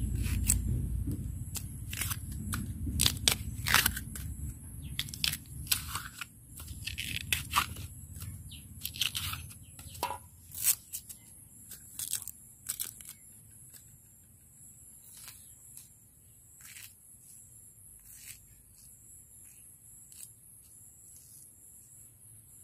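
Knife cutting and peeling a fresh bamboo shoot: crisp cracks and tearing as the blade goes through the shoot and its husk. The cuts come quickly at first, then more sparsely in the second half.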